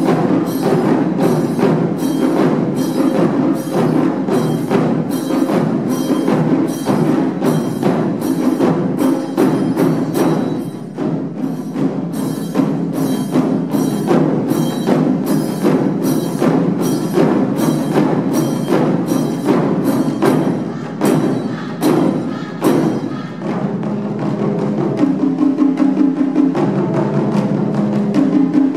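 Japanese taiko ensemble playing: nagado chu-daiko, shime-daiko and okedo-daiko struck with bachi in a fast, steady, driving rhythm. A held pitched tone joins over the drumming near the end.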